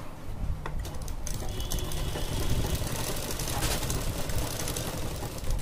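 Sewing machine running steadily, its needle stitching through a gathered elastic waistband on cotton fabric.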